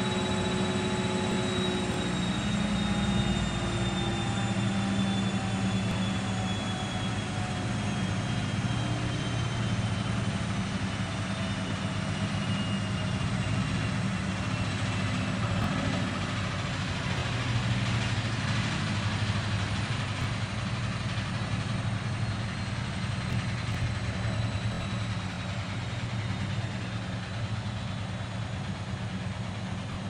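Miele Novo Duo washing machine on its final spin: a steady low hum from the spinning drum, with a motor whine that slowly falls in pitch over the first half, the whole sound easing slightly near the end.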